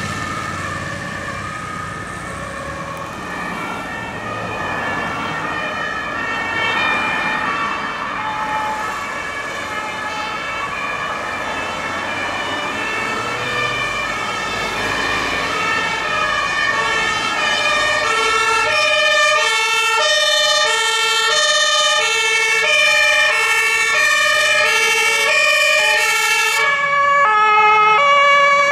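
Several German two-tone emergency-vehicle sirens (Martinshorn) sounding at once, each stepping between its two pitches and out of step with the others. Faint at first, they grow louder and clearer in the second half.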